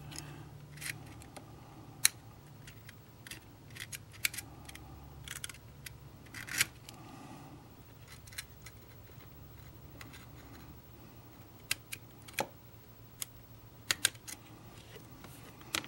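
Irregular sharp clicks, taps and light scrapes of a thin steel punch working against small metal parts and the plastic body of a model passenger car. A faint low hum sits under the first two-thirds.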